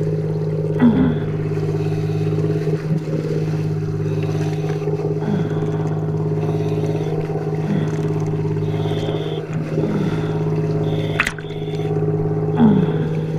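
Dive boat's engine idling steadily right at the stern ladder, heard from the waterline, with water splashing and sloshing against the ladder and hull. A single sharp click about eleven seconds in.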